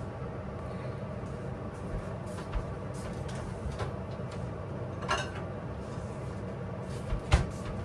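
Steady low background hum, broken by a few sharp knocks. The loudest knock comes near the end.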